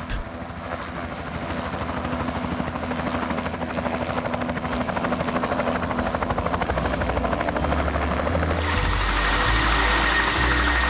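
Cargo helicopter's rotor chopping rapidly and steadily, growing louder over several seconds. Near the end it cuts abruptly to music with low bass notes.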